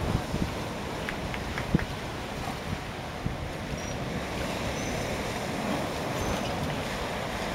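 Steady rush of wind on the microphone and sea water washing, with a few faint knocks early on and a few short, faint high chirps in the middle.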